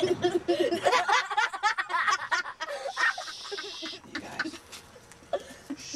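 People's voices with short snickering laughter, loudest in the first half and fading towards the end.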